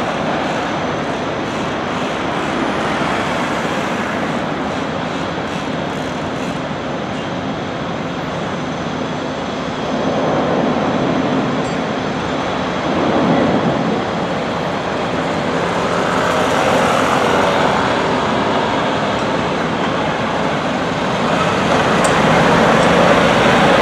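Steady rumble of engines and road traffic, swelling a few times, with no distinct single event standing out.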